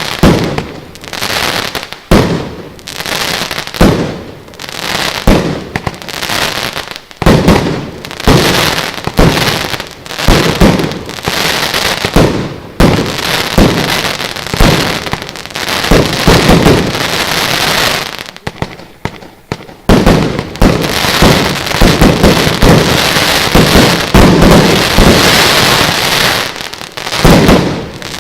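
Lesli "Shotgun" 75-shot, 30 mm compound firework battery firing. A rapid series of hard bursts, each followed by delayed crackling. A short lull comes about two-thirds through, then denser, continuous crackling near the end.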